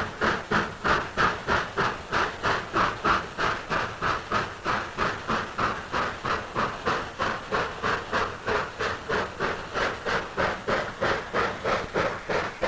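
Steam locomotive working a freight train, its exhaust chuffing in a steady, even rhythm of a little over three chuffs a second.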